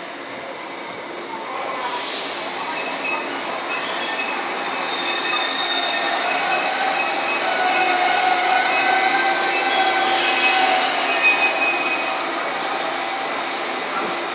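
Train moving through a station with its wheels squealing: several high, steady squeal tones over the rumble, building up and loudest in the middle, then easing off.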